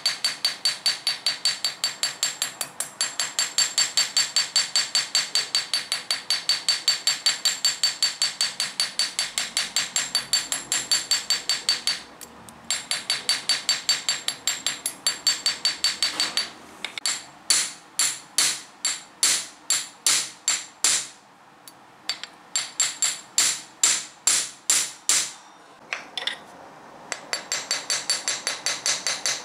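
Rapid hammer blows on steel wire laid on a small bench anvil, cold-hammering the wire to work-harden and flatten it. The anvil rings with each strike, at about five strikes a second, broken by a few short pauses, with slower, more widely spaced strikes in the second half.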